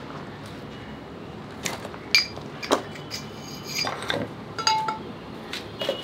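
Steel workshop parts clinking and ringing against each other as a bushing is handled on a sprocket: about half a dozen sharp, irregular metal clinks with a short ring, starting under two seconds in.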